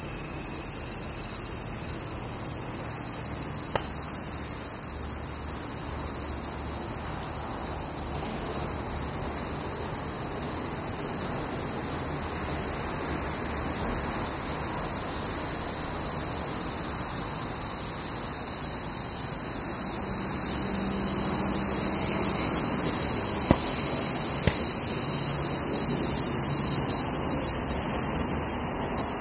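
Insect chorus chirring steadily and high-pitched. A faint low hum comes in during the last ten seconds.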